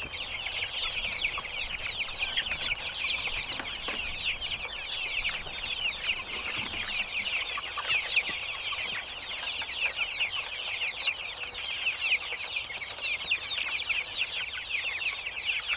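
A flock of young chickens peeping continuously: many high, short, downward-sliding cheeps overlapping with no pause.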